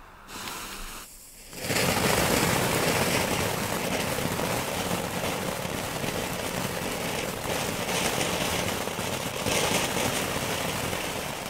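Ground fountain firework (the 'Flying Cranes' from a Category 1 fountain assortment) spraying sparks: after a quieter second and a half, it catches and gives a loud, steady rushing hiss that holds for about nine seconds and eases off near the end.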